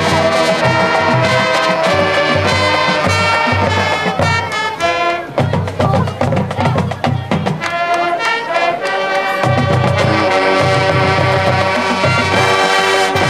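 High school marching band playing: massed brass holding chords and melody over a steady pulse of bass drums and percussion.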